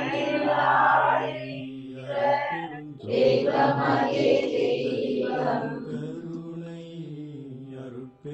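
Several voices chanting a Tamil devotional refrain in unison, slow and sung on a few held notes over a steady low drone. It swells fuller and louder about three seconds in.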